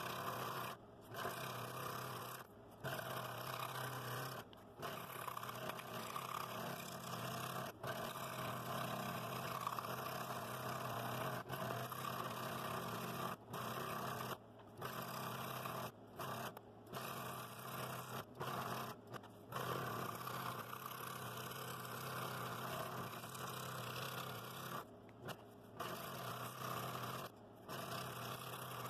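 Scroll saw running, its fine No. 3 blade cutting through a stack of soft wood and plywood backing. The steady cutting noise is broken by short gaps every second or two.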